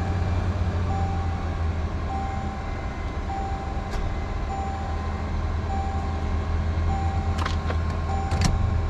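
A vehicle engine idling with a steady low hum, while a reversing beeper sounds a short single-pitch beep about every 1.2 seconds. A few sharp clicks come near the end.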